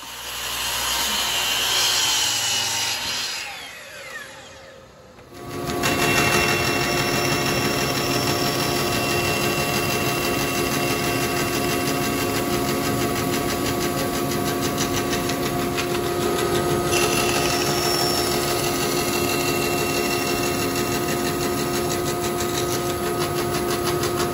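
A Festool sliding miter saw cuts through plywood and spins down over the first few seconds. About five seconds in, a Rikon 14-inch bandsaw takes over, running steadily with a constant hum.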